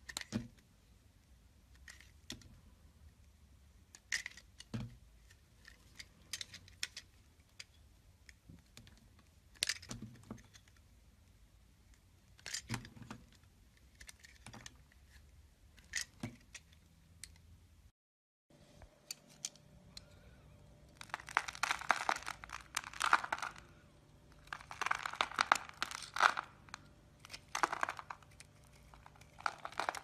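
Utility knife cutting a bar of soap: a few sharp cracks and snaps, a couple of seconds apart, as chunks break off. After a brief silence, a blade scrapes a softer bar of soap into crumbly shavings in dense, crunchy strokes that are louder than the snaps.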